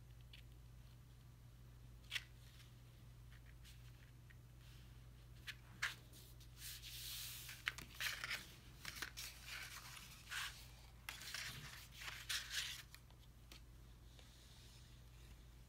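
Card stock pieces being handled and pressed together on a tabletop: paper rustling and scattered light taps, busiest from about six to thirteen seconds in.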